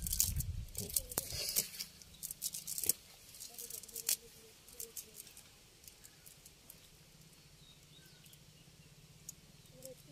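Sharp clicks, rustles and soft thumps of fish and a wet cast net being handled beside a plastic basket, busiest in the first three seconds, then faint scattered crackling as the net is picked through by hand.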